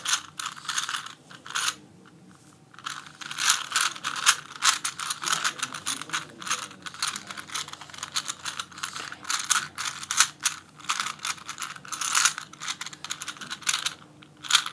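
A very loose Rubik's Cube being solved by hand: rapid, irregular clicking and clacking as its layers are turned, with the loose pieces knocking against each other. There is a brief pause about two seconds in.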